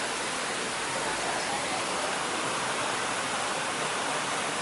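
Steady, even rush of running water, as from a small waterfall.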